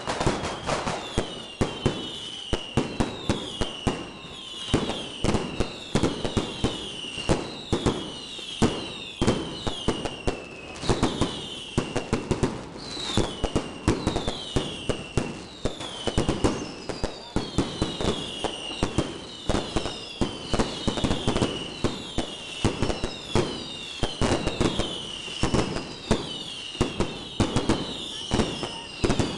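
A continuous barrage of fireworks: rapid sharp bangs and crackles, with many overlapping whistling fireworks, each whistle falling in pitch.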